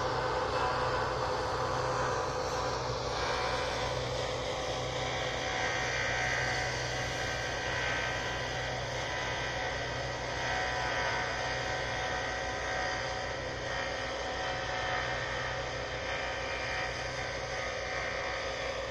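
Combine harvester running steadily while harvesting barley: a continuous drone of engine and threshing machinery with a few steady held tones.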